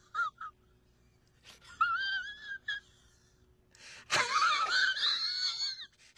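A man's high, wavering, wheezy whine, heard in three stretches. The last and loudest starts about four seconds in with a quick rise in pitch.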